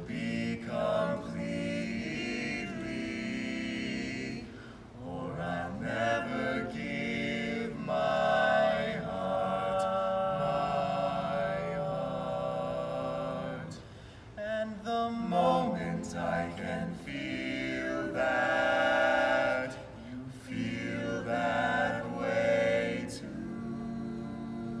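Barbershop quartet of four male voices singing a cappella in close harmony, holding sustained chords in long phrases with brief breaks between them.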